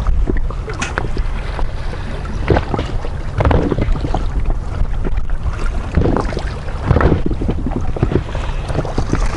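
Wind buffeting the microphone with a heavy low rumble, while small waves slap against the hull of an inflatable PVC boat in irregular splashes.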